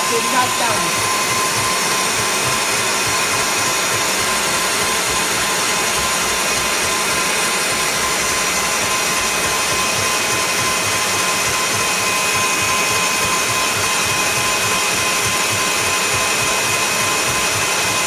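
Kenwood stand mixer running steadily, its whisk beating egg whites in a steel bowl into meringue. The motor's steady hiss carries a constant whine on top.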